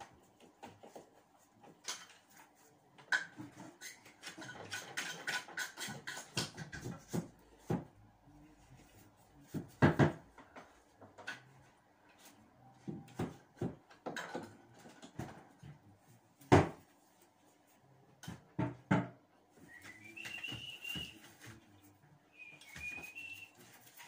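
Irregular taps, knocks and scraping from hand work on a wall, with a stretch of quick scraping early on and a few sharper knocks. Near the end come two short, high whistle-like notes.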